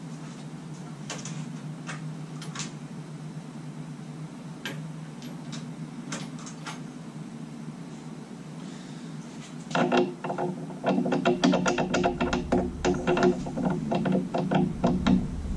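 Hand tools being handled off camera: a few scattered clicks, then from about ten seconds in a busy run of metal clatter and clicks as sockets and tools are sorted, over a steady low hum.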